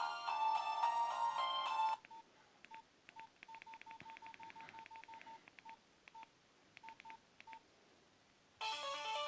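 A Nokia 1112 ringtone melody plays and stops about two seconds in. About twenty short, same-pitched keypad beeps follow at uneven spacing as the phone's buttons are pressed. Another ringtone melody starts near the end.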